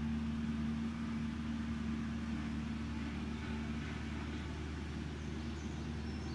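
A motor engine idling steadily in the background, a constant low hum.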